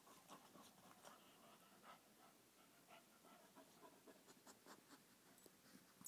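Near silence with faint scratchy rustling and small scattered clicks from dogs moving about.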